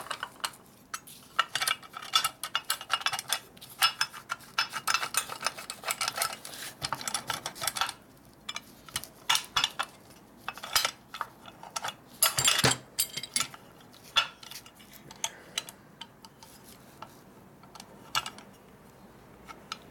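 Steel shift forks and shift rail of a T5 transmission clinking and rattling against the cast aluminum shift cover as they are worked into place by hand. A dense run of light metal clicks comes in the first several seconds, a couple of sharper knocks come around the middle, and the taps become sparse after that.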